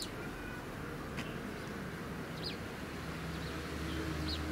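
A few short, high, faint chirps from small birds, spaced a second or so apart, over a steady background hum that swells a little about three seconds in.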